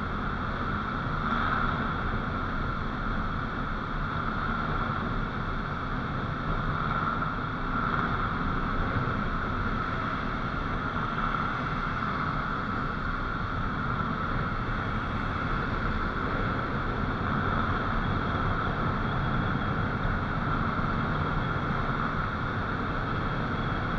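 Motorcycle riding at a steady cruising speed on an expressway: engine and road noise, with wind on the microphone, holding even throughout.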